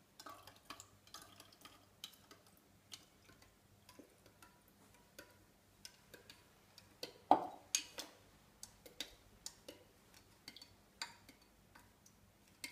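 A spoon stirring diluted PVA school glue and saturated borax solution in a glass beaker, with faint irregular clicks and taps of the spoon against the glass and one louder knock about seven seconds in, as the glue begins to cross-link into slime.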